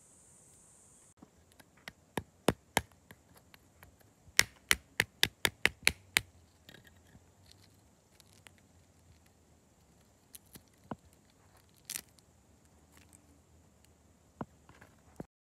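Sharp clicks and cracks of roasted cashew shells being broken open and picked apart by hand on a rock: a quick run of about eight cracks, roughly four a second, in the middle, with scattered single cracks before and after.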